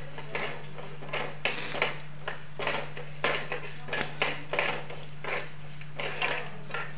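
A slotted steel spatula scraping and clinking against an aluminium pan, in short irregular strokes a few times a second, as mustard seeds, cumin and dal are stirred dry. A steady low hum runs underneath.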